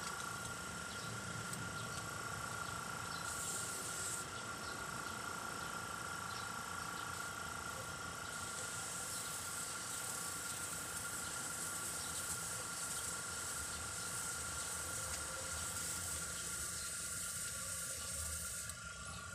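Airbrush hissing as it sprays black paint: a short burst about three seconds in, then a long steady hiss from about eight seconds in that cuts off just before the end. A steady high whine and a low hum run underneath throughout.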